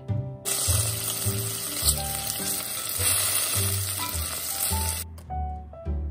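Cubes of fatty pork sizzling in hot oil in a glass saucepan, a dense steady sizzle that starts about half a second in and cuts off suddenly about five seconds in. Soft background music plays underneath.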